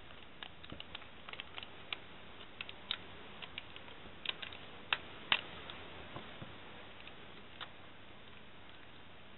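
Light, irregular clicks and taps of a small flat screwdriver and fingertips working at the taped ribbon connector on the back of a laptop LCD panel, thinning out after about six seconds, over a faint steady hiss.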